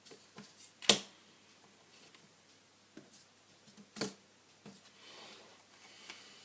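Small hard parts and tools being handled during a phone repair: a few sharp clicks and taps, the loudest about a second in and another about four seconds in, with a soft rustle near the end.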